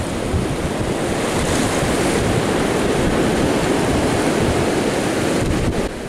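Ocean surf breaking and washing up a sandy beach, with wind buffeting the microphone.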